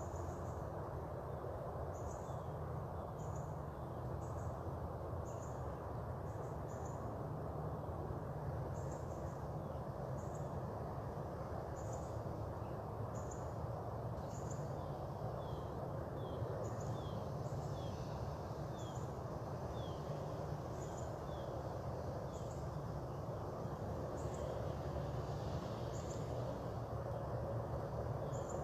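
Outdoor morning ambience of birds and insects: short high chirps about once a second, with a run of quick falling bird notes partway through, over a steady low rumble.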